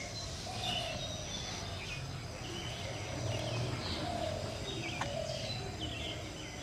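Morning birdsong from several birds: many short, high chirps and calls, with a lower call of about half a second repeating every second or two. A single brief click sounds about five seconds in.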